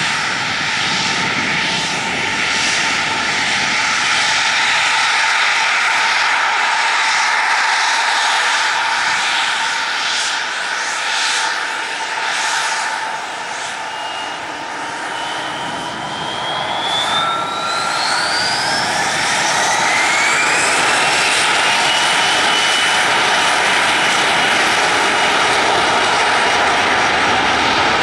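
Bombardier CRJ-900's rear-mounted GE CF34 turbofan engines running at low power, then spooling up about halfway through. The whine rises in pitch over several seconds and holds as a steady high whine as the engines reach takeoff power.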